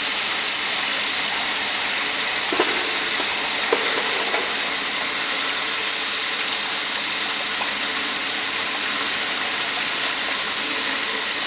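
Steady hiss of quench water spraying onto a red-hot steel camshaft just below the induction coil, flashing to steam as the shaft is scan-hardened.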